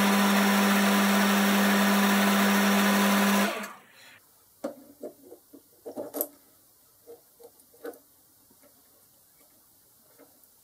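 Boxford lathe running with a steady motor hum while it spins a brass bush in the chuck. The sound stops sharply about a third of the way in, followed by a few light metallic clicks and taps as the steel block and brass bush are handled.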